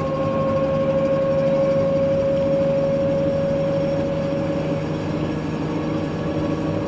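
A vehicle running with a steady rumble and a high whine that drops slightly in pitch about four seconds in.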